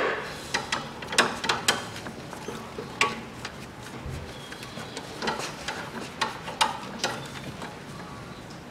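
Irregular sharp clicks and light knocks, a dozen or so at uneven intervals, from hands working the plastic timing belt cover and nearby fittings in a car's engine bay.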